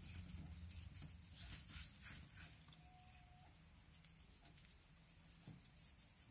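Faint, soft rustling of hands rubbing paprika onto a slab of boiled pork fat, over a low steady hum; near silence overall.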